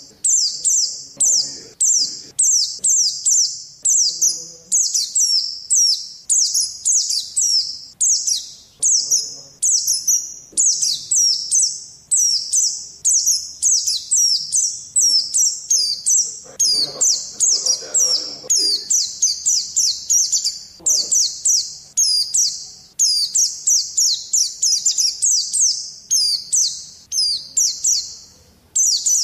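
White-eye (pleci) singing a long, fast, unbroken run of high, sharp chirping notes, breaking off briefly near the end.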